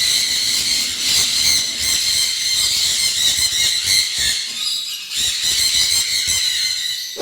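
A flock of small cage birds chattering and squealing together, a dense, continuous chorus of high-pitched calls.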